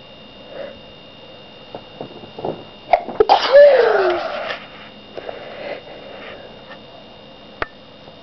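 A person sneezing once, loudly, about three seconds in, after a few short catching breaths; the voiced end of the sneeze falls in pitch. Softer breaths follow, and there is a sharp click near the end.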